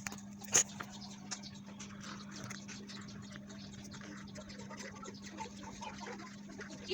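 Faint, scattered small clicks, ticks and scratches, one sharper click about half a second in, over a steady low electrical hum.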